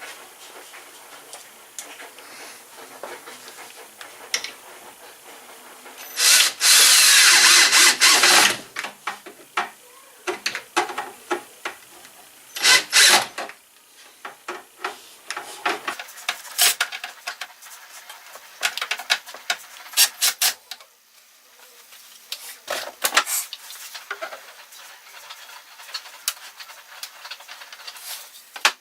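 Woodworking on wooden dowels: scattered knocks, clicks and rubbing of wood, with a power tool running loudly for about two seconds about six seconds in and briefly again near thirteen seconds.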